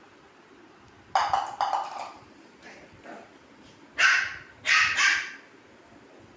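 Pomeranian puppy barking in two short bouts: a few barks about a second in, then three more about four seconds in.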